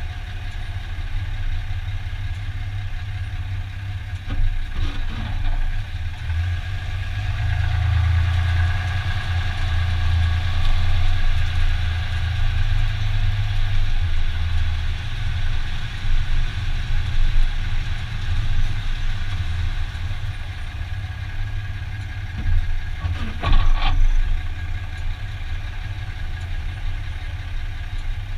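2015 Dodge Ram 2500 pickup running at low speed with a steady low hum that swells for several seconds. Two short sharp noises come through about four and twenty-three seconds in, the drivetrain noise the truck makes when parking.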